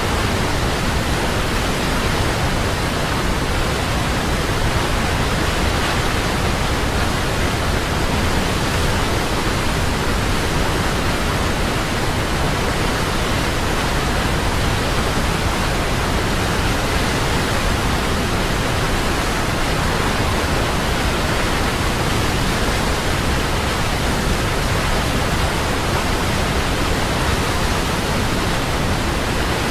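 Large waterfall: falling water making a steady, unbroken rush.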